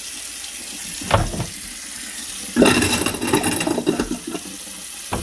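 Kitchen faucet running into the sink, with a knock about a second in and a louder rattling clatter in the sink basin for about a second and a half near the middle.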